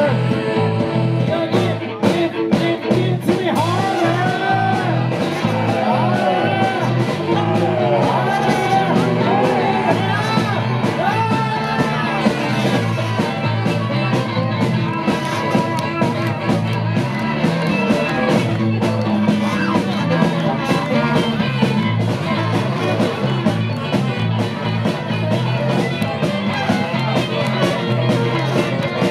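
Live rock band playing an instrumental passage at full volume: fiddle lines sliding up and down over a moving electric bass line and drums.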